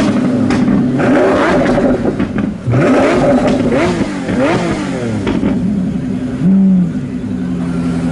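High-performance car engine revved in a series of quick throttle blips, the pitch rising and falling again and again, then settling into a steadier drone with one short held note near the end.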